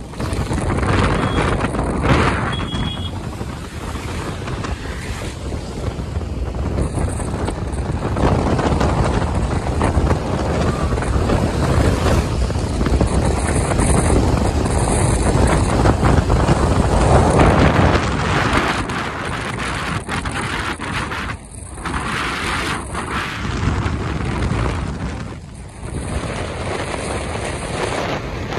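Rushing wind and tyre noise from a car travelling at speed on a wet road, with wind buffeting the microphone. The noise is steady apart from two brief dips in level in the second half.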